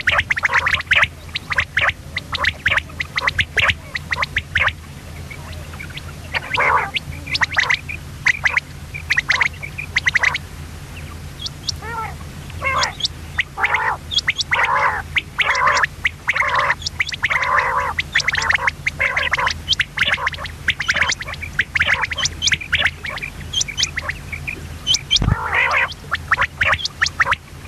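Common quail calling: rapid runs of short, harsh chirping notes in irregular bursts, over a steady low hum. A single knock near the end.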